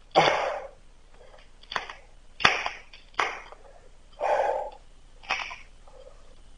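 A man's short, sharp breaths and grunts: six separate bursts at irregular gaps of about a second, the first the longest. He is reacting to the heat of the piece in his gloved hands.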